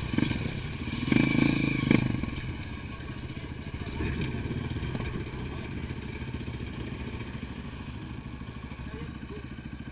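Dirt bike engine running at low revs. Revs and loudness rise briefly about a second in, then the engine settles back to a steady low-speed run.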